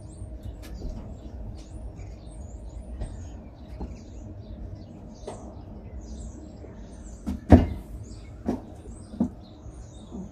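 Small birds chirping in short, irregular high calls over a low steady rumble, with a few knocks, the loudest about seven and a half seconds in, as a person handles the exercise bike.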